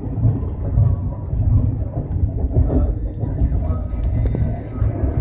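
A passenger train running, heard from inside an air-conditioned coach: a steady low rumble, with a couple of faint clicks about four seconds in.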